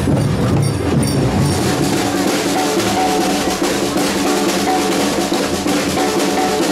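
Samba batucada percussion band playing dense, driving drum rhythms with shakers. For the first second and a half a bass-heavy stretch of music is heard before the drumming takes over.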